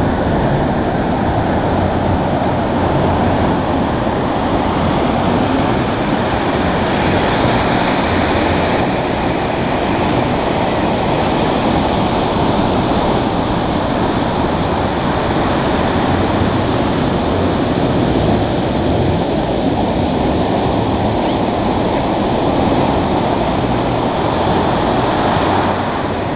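Ocean surf breaking and washing up a sand beach right at the waterline: a loud, continuous rush of water that swells and eases as the waves come in.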